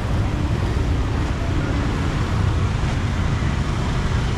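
Street traffic noise, mostly motorbikes, a steady rumble with no single standout event.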